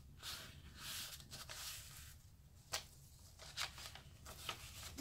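Soft rustling and brushing of paper pages being turned and handled in a handmade junk journal, with one sharp tap a little under three seconds in.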